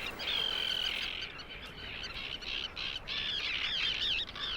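Tern colony screaming: many harsh calls overlapping, one longer call near the start and a thicker run of short calls about three seconds in.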